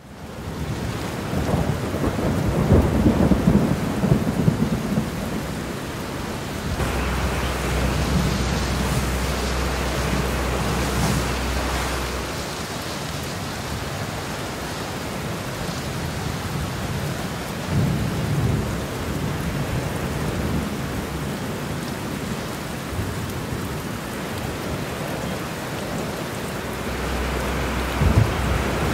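Heavy rain falling steadily, with rumbles of thunder that swell about two to five seconds in, again around eighteen seconds, and near the end.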